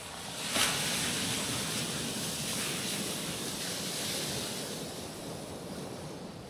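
Small ocean waves breaking on a rocky shore: a wave crashes about half a second in, and its hiss of surf washes over the rocks and slowly fades.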